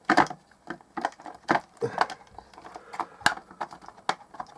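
Hard plastic clicking and knocking in an irregular string as a clock radio's case is worked at to force its clipped-together halves apart.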